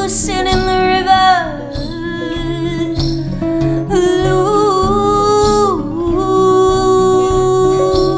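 Live acoustic band music: a woman's voice holding long sung notes that slide between pitches, over strummed acoustic guitar, with a couple of sharp drum hits.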